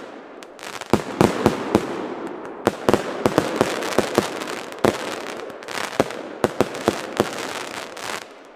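Firework battery firing, its shots bursting low overhead in a rapid run of sharp bangs and crackle, several a second, with a lull just before the end. The shooter takes it for a faulty product whose effects burst far too low.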